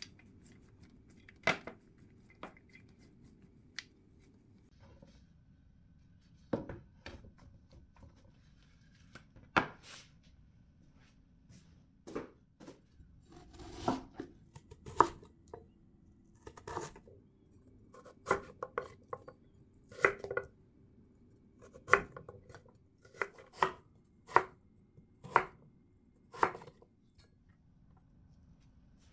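Kitchen knife cutting a Korean radish on a wooden cutting board: separate knocks of the blade meeting the board, sparse at first and then about one a second.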